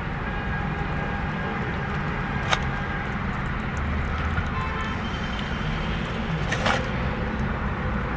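Steady low rumble of a car, heard from inside the cabin, with two brief crinkles of the foil wrapping around a burger being handled, about two and a half and six and a half seconds in.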